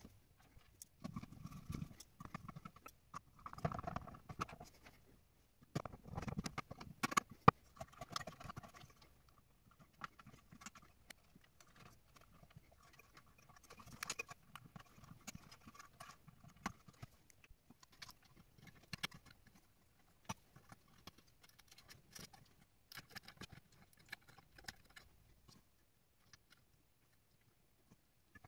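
Faint, irregular clicks and knocks of hands handling parts inside an opened LaserDisc player's metal chassis, busiest in the first eight seconds or so and sparser after.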